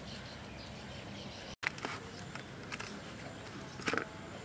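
Hand mashing and kneading fresh chhena on a stainless steel plate: a few irregular light taps and clicks as fingers press the curd against the metal, the loudest a quick cluster near the end, over a steady background hiss.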